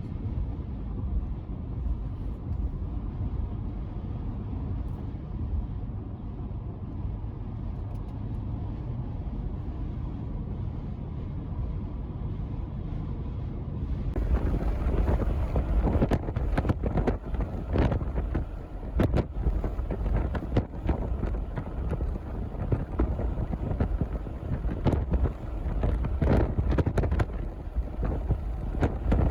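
Steady low rumble of a moving vehicle. About halfway through it turns abruptly into loud, gusty wind buffeting the microphone, which goes on to the end.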